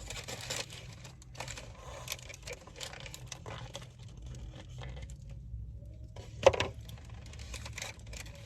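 Paper or foil food wrapping being handled and opened: irregular crinkling and rustling with small clicks, and one sharp knock about six and a half seconds in.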